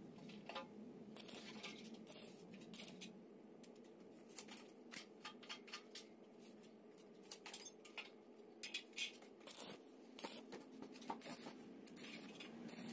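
Faint, scattered clicks, taps and scrapes as a stick-welding electrode holder, its cable and hand tools are handled on a concrete floor, over a faint steady hum.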